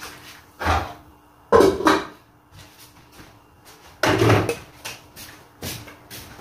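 Dishes and pots being handled and set down: three louder clatters, about half a second, a second and a half and four seconds in, with lighter knocks between, over a faint steady hum.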